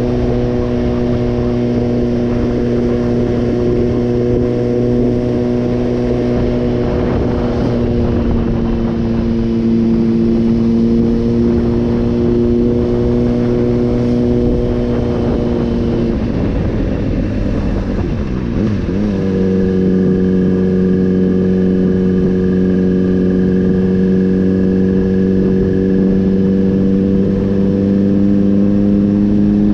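Honda CBR600RR's inline-four engine running steadily at cruising revs under wind rush. A little past the middle the note breaks off briefly in a gear change and comes back at a lower pitch, then climbs slowly.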